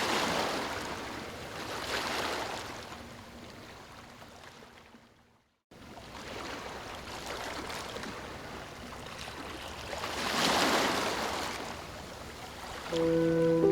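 Ocean waves washing in and out, the surf noise swelling and fading in slow surges, with a brief dropout to silence just before the middle. Soft sustained music notes come in near the end.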